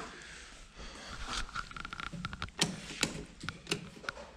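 A row of sharp clicks and knocks, as a bank of wall light switches is flicked, with a brief buzzing tone just before the clicks come thickest.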